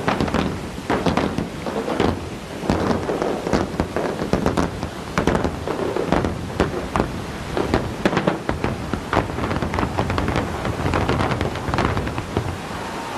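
Explosives going off in the implosion of a hotel tower: a dense, unbroken run of sharp cracks and bangs over a low rumble.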